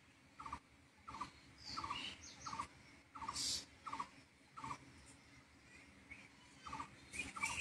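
An animal chirping faintly, in short chirps about every two-thirds of a second, with a pause of over a second midway. There is a brief hiss about three and a half seconds in.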